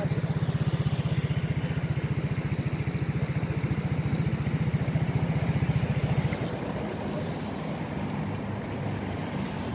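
A motor vehicle engine idling with an even, rapid throb. It becomes quieter about six seconds in and keeps running.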